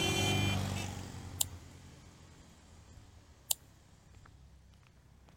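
A car engine running, fading away over the first second and a half, followed by two sharp clicks about two seconds apart.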